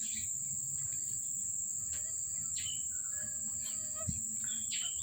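Crickets trilling steadily and high-pitched, with a few short bird chirps scattered over it.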